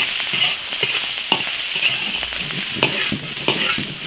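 Diced cured pork and ginger slices sizzling in a little oil in a hot iron wok, with a steel ladle stirring them and scraping and knocking against the wok at irregular moments.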